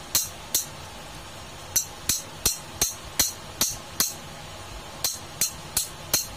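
Sharp metallic taps of a steel spanner striking a fan motor's shaft and end bell, about three a second in three short runs with brief pauses, each with a bright ring. They knock the old bearing and rotor out of the condenser fan motor's housing.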